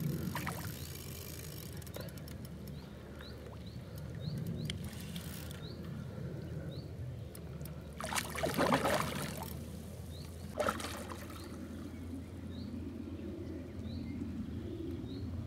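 A hooked fish splashing and thrashing at the surface of the water, with a long burst of splashing about eight seconds in and a shorter splash a couple of seconds later.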